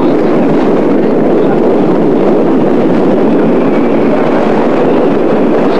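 Steady loud roar of Niagara Falls heard from the water below them, mixed with wind buffeting the camcorder microphone.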